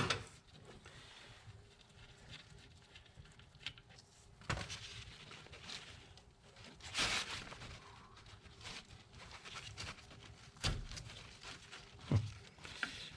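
Faint, scattered clicks and knocks of hand work on brake line fittings, one every few seconds, with low room noise between them.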